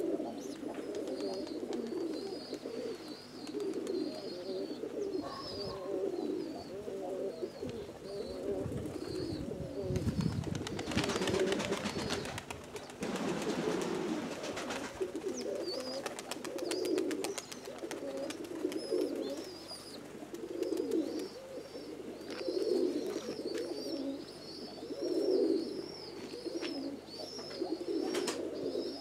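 Domestic pigeons cooing over and over in a low, pulsing chorus, with a thin high chirping above it for much of the time. A broad rustling noise rises over them from about ten to fifteen seconds in.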